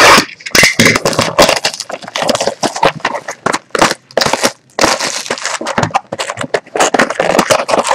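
Cellophane shrink wrap on a trading-card hobby box crinkling and tearing as it is cut open and stripped off: a continuous run of irregular crackles.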